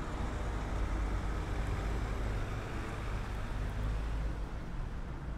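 City street traffic: a steady low rumble of vehicle engines under a wash of road noise, a little fuller through the middle.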